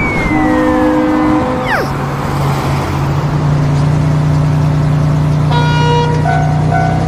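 Road vehicle sound effects: steady traffic noise with two falling whistle-like glides in the first two seconds, then a truck's low engine drone from about halfway in as it drives past. A bright stepped musical jingle comes in near the end.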